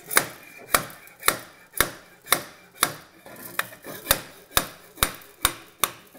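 Repeated sharp metal knocks, about two a second, as a motorcycle exhaust silencer is rammed along a bar against its dB killer, which acts as a drift to push the outlet end cap out.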